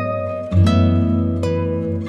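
Background instrumental music: plucked strings playing a slow tune over a held bass, with a new note about every second.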